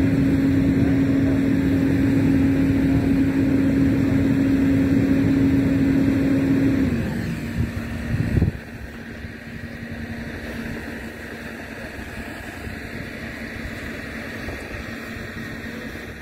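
Flatbed delivery truck's engine running steadily at raised speed with a constant hum, then dropping to a lower, quieter idle about seven seconds in, with a brief knock just after.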